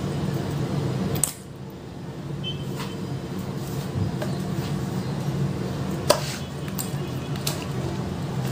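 A few light, isolated clicks of kitchen utensils over a steady low hum.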